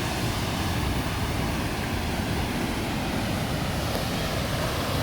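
Steady roar of Koosah Falls, a large waterfall on the McKenzie River, its water pouring and crashing into the pool below.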